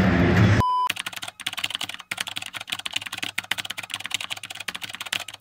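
Background music cuts off abruptly about half a second in, a short high beep follows, and then fast, uneven computer-keyboard typing clicks run until the end.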